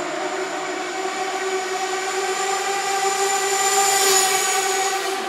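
Small nitro engine of a Kyosho Fazer FXX radio-controlled car held at high throttle, a steady high-pitched buzz through its exhaust that swells about four seconds in and eases off near the end.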